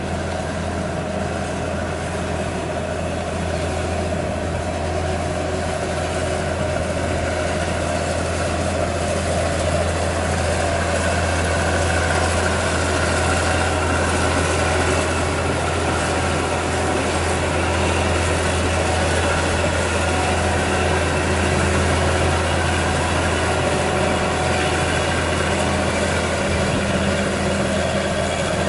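2004 John Deere 9660 STS combine's diesel engine running steadily as the combine drives, with a constant low engine note. A higher steady tone joins about ten seconds in and fades several seconds later.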